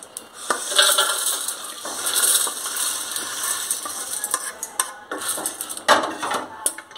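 Dry-roasted dried red chillies, curry leaves, lentils and garlic tipped from a metal kadai into a stainless steel bowl, rattling and scraping against the metal, with a few sharper knocks of pan on bowl.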